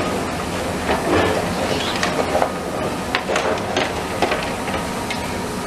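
Demolition machinery at work: a diesel excavator's engine running under a steady clatter, with irregular clanks and knocks of metal and rubble.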